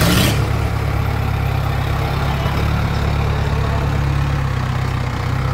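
Mahindra tractor's diesel engine idling steadily with an even low hum, after a short hiss right at the start.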